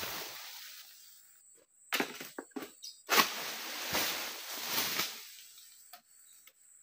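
Oil palm fronds being cut with an egrek, a sickle on a long pole, and falling: a run of sudden rustling swishes and thuds of palm leaves, the loudest about three seconds in.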